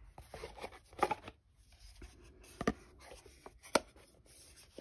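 Handling of a rigid cardboard tarot box and its cards: light rustling and scraping, broken by three sharp taps or clicks about a second apart.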